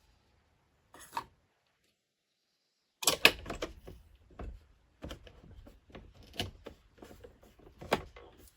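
A brief knock, then a dense run of irregular clicks and knocks, as of hard objects being handled.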